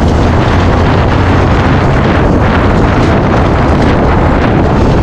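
Wind buffeting the microphone of a moving motorcycle, with the engine running steadily underneath.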